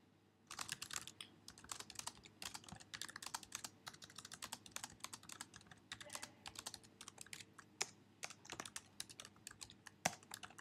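Typing on a computer keyboard: a quick, irregular stream of faint key clicks, with a sharper keystroke about ten seconds in.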